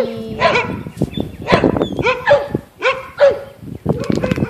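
A dog barking, a series of short, sharp barks.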